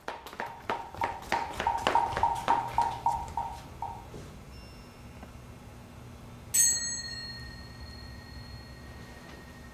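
A wooden block is struck in a quick run of about fifteen strokes, about four a second, swelling and then dying away. Near the middle a small bell is struck once and rings on with a clear high tone.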